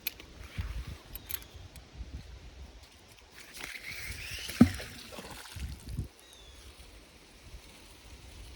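Water splashing and sloshing, with scattered knocks and one sharp, loud knock about halfway through.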